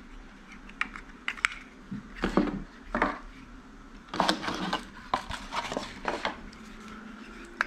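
Handling noise of the Hohem iSteady X gimbal's small tripod being taken from its packing tray and fitted onto the gimbal's handle: scattered light clicks and knocks, with a louder scraping rustle about four seconds in.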